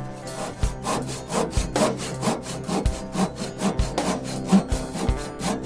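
Handsaw cutting a kerf down the end grain of a wooden tenon for a wedge, in steady back-and-forth strokes about two a second, with faint background music underneath.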